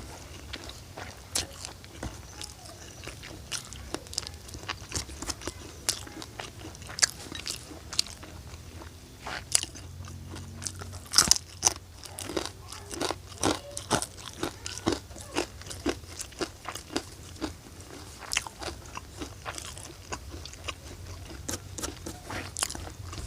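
A person biting and chewing crunchy food close to the microphone, with many irregular sharp crunches and crackles, densest in the middle.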